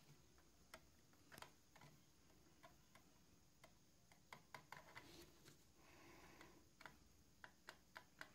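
Near silence with faint, irregular small clicks and light scrubbing from a brush rubbing wet paint off a hairspray chipping layer on a small plastic model part.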